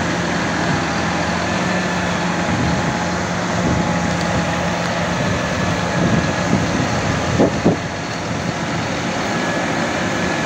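Valtra tractor's diesel engine running steadily at low speed, with its low hum dropping away about six seconds in and a few brief sharper sounds a little later.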